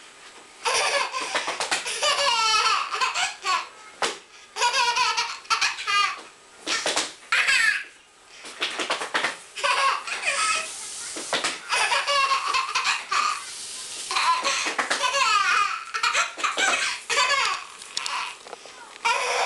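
A toddler laughing hard: high-pitched belly laughter in repeated fits, broken by short pauses between bouts.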